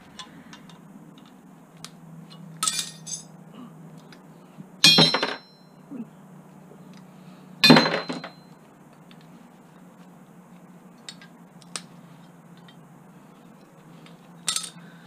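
Small scrap metal plumbing parts (brass and copper fittings) clinking and clattering against each other as they are handled and dropped onto the pile, a few sharp ringing clinks a couple of seconds apart, loudest about five and eight seconds in, with light ticks between.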